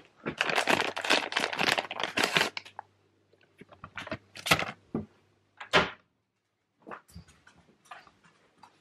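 Dense rustling and handling noise for the first two and a half seconds, then a few scattered knocks and clicks, the clearest about four and a half and six seconds in, as someone moves about and rummages through things.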